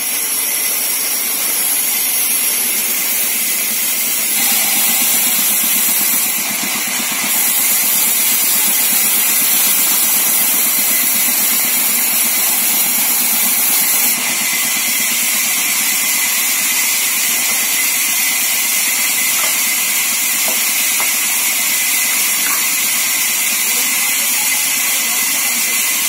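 Large vertical sawmill band saw running steadily, a continuous hissing whir with no separate strokes.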